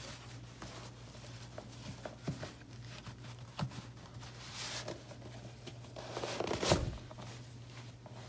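Soft knocks and leather rubbing as feet shift in a new pair of Dan Post lizard-skin cowboy boots on carpet, with one louder thump about two-thirds of the way through.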